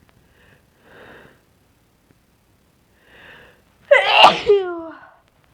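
A woman's induced sneeze: two faint breaths, then one loud sneeze near the end whose voiced tail falls in pitch.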